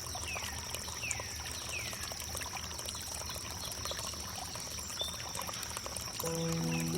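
Water flowing and trickling steadily, with a bird giving short calls that fall in pitch, repeated about once a second, over a steady high-pitched drone. Soft held musical notes come in near the end.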